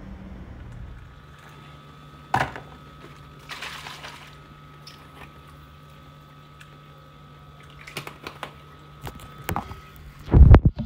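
Liquid poured into a ceramic mug, with a short rush of pouring a few seconds in and a steady appliance hum under it. Clicks and light knocks from handling come and go, and a loud thump lands near the end.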